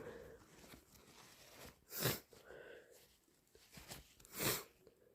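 A person with a cold sniffing twice through a stuffy nose, a short sharp sniff about two seconds in and another near the end, with faint breathing between.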